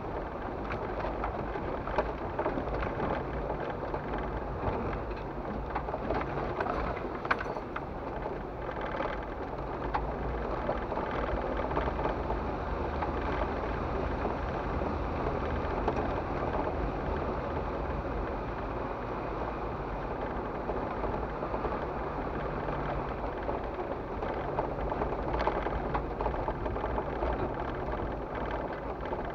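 Off-road vehicle driving slowly on a dirt trail, heard from inside the cabin: a steady low engine hum under tyre and road noise, with a few sharp knocks and rattles over the bumps.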